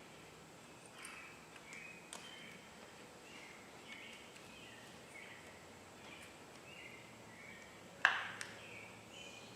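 Birds chirping over and over in the background, with faint clicks a second or two in and a sharp click or knock about eight seconds in, followed by a smaller one.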